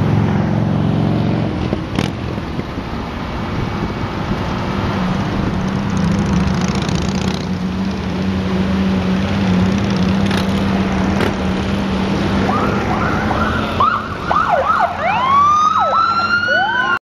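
Steady car engine and road noise from a moving car; near the end, police sirens start up, yelping and wailing in rapid rising and falling sweeps over it.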